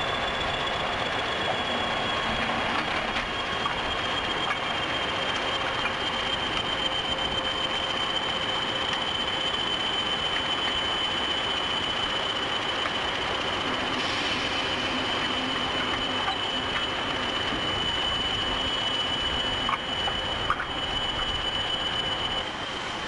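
Class 20 and Class 50 diesel locomotives being shunted slowly, coupled together: a steady, high wheel squeal that sinks slightly in pitch over the rumble of the moving train, with a couple of knocks near the end.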